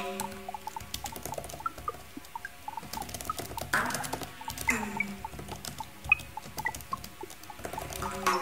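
Sparse, glitchy electronic music: scattered short pips at different pitches over clicks and crackle. A couple of falling swoops come about four and five seconds in, and held tones sound near the start and the end.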